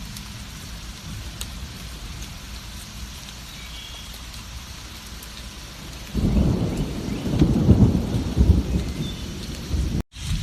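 Steady heavy rain hissing, then about six seconds in a low rumble of thunder that swells and rolls for about four seconds. The sound cuts out for a split second near the end before the rain resumes.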